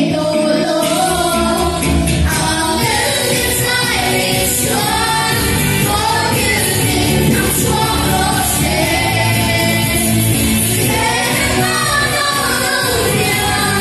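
A small group of voices, women, a man and a child, singing a song together through a PA, with electric guitar and band accompaniment. The low end of the band comes in fully about a second in.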